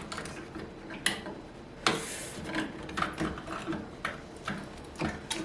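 Irregular clicks and taps of small metal parts and a hand tool as the microwave is closed back up after its blown high-voltage fuse has been replaced, with one louder click and a brief scrape about two seconds in.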